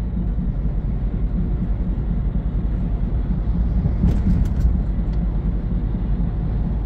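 Steady low rumble of a truck's engine and road noise inside the cab while driving at speed, with a few short clicks about four seconds in.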